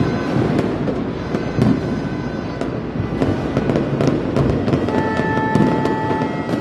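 New Year fireworks and firecrackers going off in a dense, continuous barrage of bangs and crackling pops. A steady held horn-like tone joins about five seconds in.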